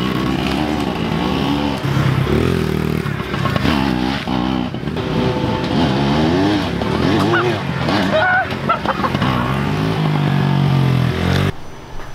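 Small dirt bike's engine running hard, its pitch rising and falling repeatedly as it is ridden around a dirt loop; the sound cuts off suddenly near the end.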